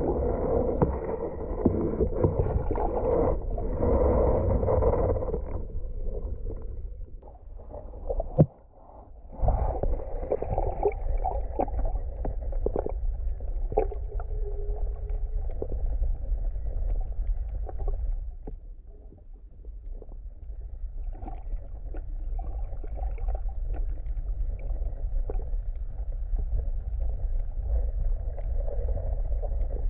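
Water heard through an action camera's waterproof housing underwater: a dull low rumble and gurgling with scattered small clicks. It breaks off briefly about eight seconds in, then goes on.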